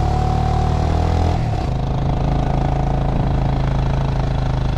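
Motor vehicle engine running steadily at a loud, constant level, its note changing about a second and a half in.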